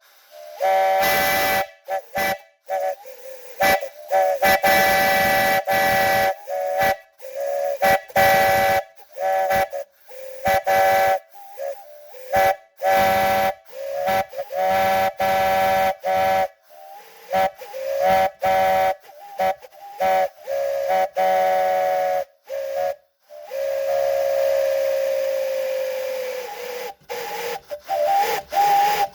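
Buckeye 3-inch three-chime whistle blown on compressed air from a compressor: a three-note chord with a rush of air hiss, sounded in a long run of short toots and longer blasts with quick gaps between. Near the end one longer blast slides down in pitch as it fades.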